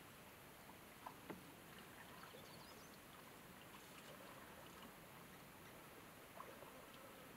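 Near silence: faint outdoor hiss with a few faint high chirps and two soft clicks a little over a second in.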